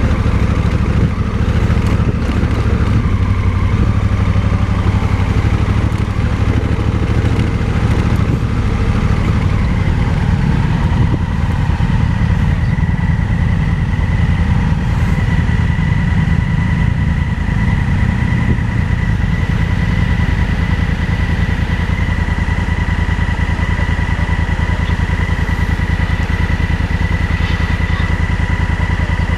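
Motorcycle engine running steadily throughout, with a thin, steady high-pitched whine coming in about ten seconds in.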